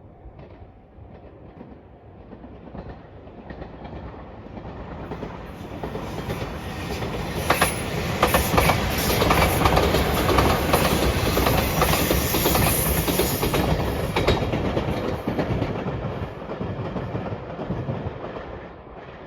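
Electric passenger train passing at speed: it grows louder as it approaches, peaks for several seconds with the wheels clacking over rail joints, then fades as it runs away.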